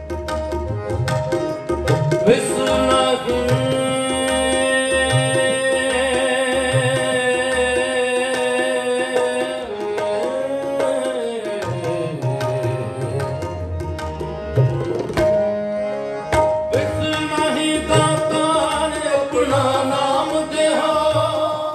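Sikh kirtan: a singer holds long, wavering notes over a steady harmonium drone, with tabla strokes underneath. The singing breaks off for a few seconds in the middle while harmonium and tabla carry on, then resumes.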